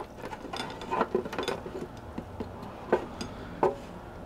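A few irregular light knocks and clicks of kitchen utensils and containers being handled while the wine marinade is strained off the vegetables.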